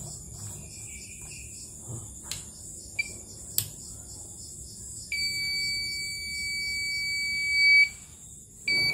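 CNY portable embroidery machine's buzzer beeping: a short beep about three seconds in, then one long steady beep lasting nearly three seconds, and beeps again near the end. It is the sign that the machine's board is powered and responding after the power supply was replaced. Two sharp clicks come before the long beep, over a steady high hiss.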